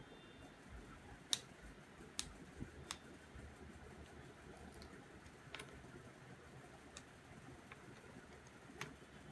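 Scattered sharp little clicks and taps, about eight in all and irregularly spaced, the loudest about a second in, over a faint steady hiss.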